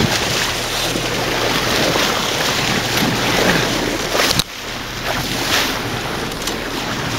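Wind buffeting the microphone over the rush of seawater along the hull of a moving sailboat, with a faint steady low hum underneath. A single knock about four seconds in.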